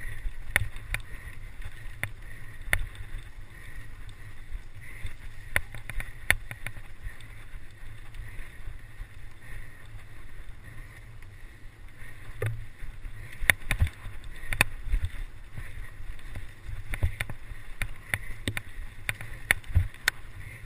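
A mountain bike rattling and knocking as it rides fast over a rough dirt trail, with a steady low rumble of wind and ground noise on the bike-mounted camera's microphone.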